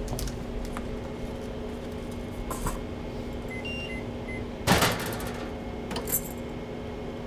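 Office coffee machine beeping a few times as its buttons are pressed, then a brief sputtering hiss, with light clicks and a steady machine hum around it; the machine is out of coffee.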